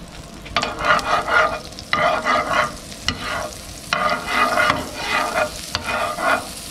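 Oil and melting Golden Ray margarine sizzling in a nonstick frying pan as a slotted spatula stirs through it. The sizzle comes in four strokes of about a second each, with a few sharp clicks of the spatula against the pan.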